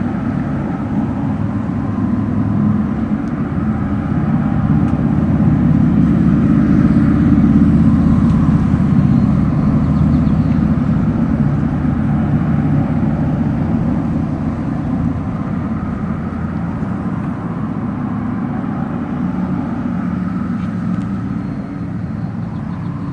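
Honey bees buzzing around an opened hive, a dense steady hum that swells about a quarter of the way in and eases off toward the end.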